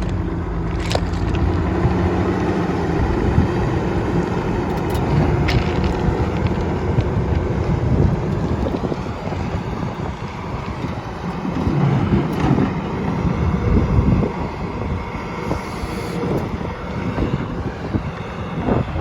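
Volvo EC360CL hydraulic excavator's diesel engine running steadily, with wind buffeting the microphone.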